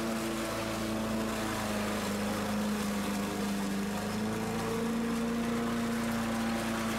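Gas walk-behind rotary lawn mower with a freshly repaired recoil starter, its small engine running steadily with an even hum. There is a slight shift in pitch partway through.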